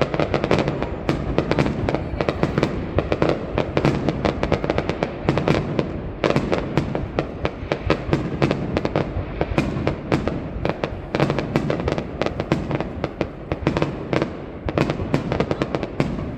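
Aerial fireworks display: a dense, continuous run of sharp bangs and crackling bursts, several a second, thinning briefly twice.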